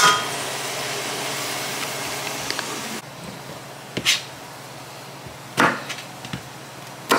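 Diced onion and bell peppers sizzling in a stainless steel saucepan, a steady hiss, with one sharp knock of a wooden spatula at the start. About three seconds in, the hiss gives way to a chef's knife chopping okra on a plastic cutting board: a few sharp knocks of the blade on the board.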